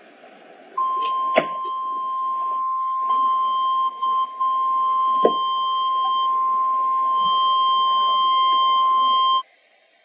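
NOAA Weather Radio 1050 Hz warning alarm tone: one steady high beep that starts about a second in and holds for about eight and a half seconds over radio static, with two brief dropouts near the middle and two sharp crackles. It signals that a warning message is about to be broadcast.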